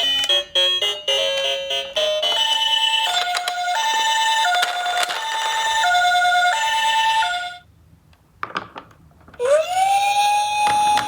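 A few quick melodic notes, then a two-tone ambulance siren alternating high and low for about five seconds. After a short pause with a couple of clicks, a siren wails up in pitch and holds steady.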